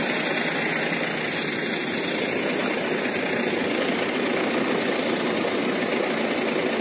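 A vehicle engine idling steadily, a constant even noise with no change.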